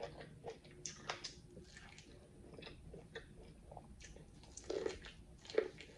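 Biting and chewing boiled corn on the cob: close, wet mouth sounds with many quick, irregular clicks and pops as kernels are stripped from the cob.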